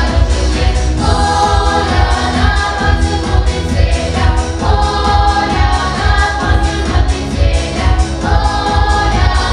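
Children's vocal ensemble singing a song together in several voices, in long held phrases, over a steady pulsing bass beat.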